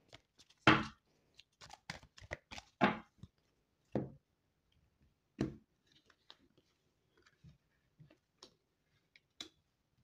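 Deck of tarot cards being shuffled and handled, then cards laid down on the table: a series of short flicks and taps, the loudest about a second in, growing sparser and fainter in the second half.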